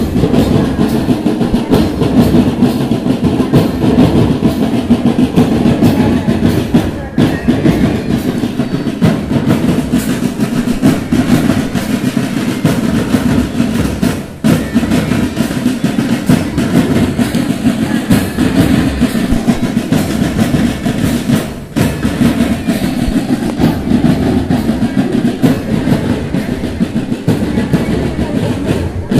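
A marching drum band of many drums played together in a steady, dense rhythm, with a short break about every seven seconds.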